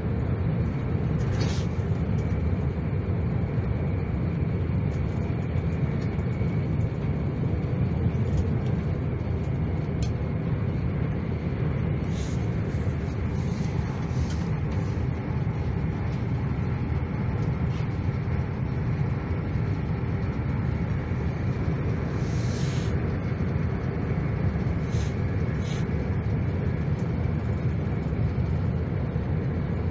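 SJ passenger train running along the track: a steady low rumble with a few brief, sharp high clicks scattered through it.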